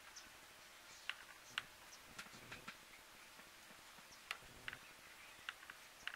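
Faint, irregular ticks and crackles of a whitetail buck stepping through dry leaves and twigs, with a few soft low thumps among them.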